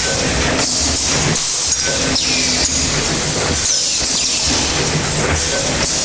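Automatic packaging machine line running: a steady loud hiss over a low hum.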